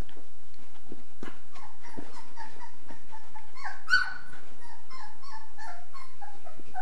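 A young puppy whimpering in a string of short, high squeaks, with one louder cry about four seconds in.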